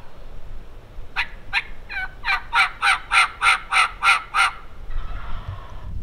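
A run of about eleven turkey yelps, each note falling in pitch. The yelps grow louder and settle into about three a second, then stop after roughly three and a half seconds.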